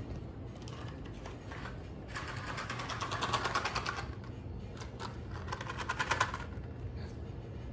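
A small plastic box of screws shaken, a dense rapid rattle lasting about two seconds, then a second shorter burst of rattling.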